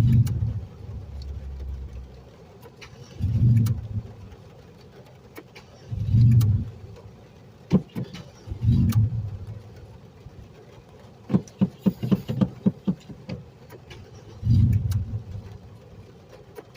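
Car engine making a hard start: it fires in short bursts of about a second every few seconds, each dying back to a low rough rumble, with a run of sharp clicks near the middle. A stubborn start with the engine wet from flooding.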